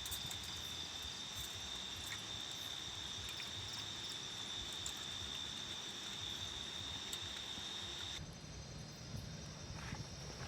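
An insect, cricket-like, giving one steady high-pitched trill that stops abruptly about eight seconds in, over a constant background hiss.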